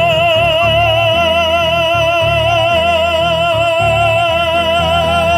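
A lyric soprano voice holds one long high note with a wide, even vibrato over a recorded accompaniment with a pulsing bass line, the note releasing near the end.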